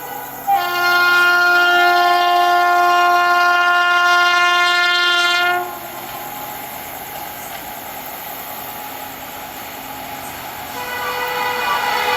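Horn of an Indian Railways WAP-7 electric locomotive at full speed. It sounds one long blast of about five seconds that cuts off sharply, then a steady rushing noise, then the horn sounds again near the end.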